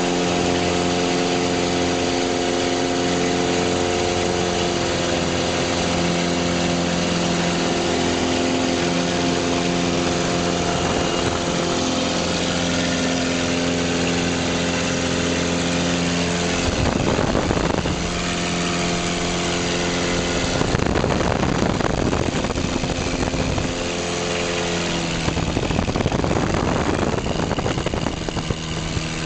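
Light aircraft's piston engine and propeller running steadily, heard from inside the cockpit. In the second half, rushing air noise comes and goes over it several times, partly covering the engine's tone.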